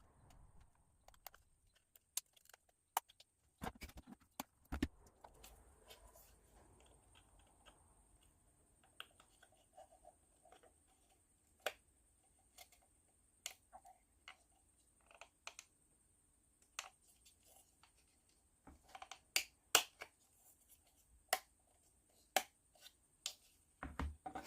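Light, irregular clicks and taps of thin plywood planks being handled and pushed into their slots around a wooden barrel piece, a few sharper knocks near the end.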